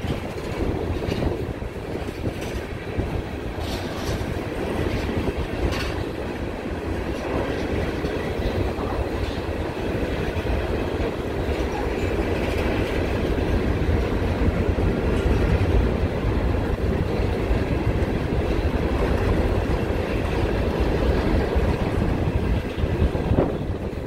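Tank cars and open hopper cars of a long freight train rolling past: a steady rumble of steel wheels on the rails, with a few sharp clicks in the first six seconds.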